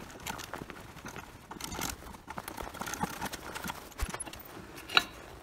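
Small, irregular metallic clicks and clinks of an Allen key working the bolts that hold a motorcycle stator coil in its generator cover, with one sharper click about five seconds in.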